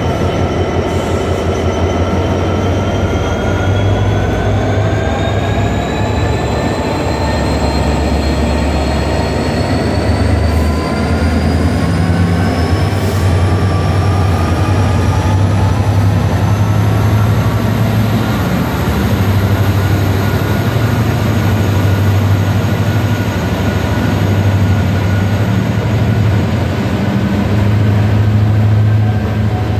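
Class 66 diesel-electric freight locomotive pulling away under power: a loud, deep engine drone with a whine that climbs steadily in pitch as it accelerates. Near the end its container wagons are rolling past.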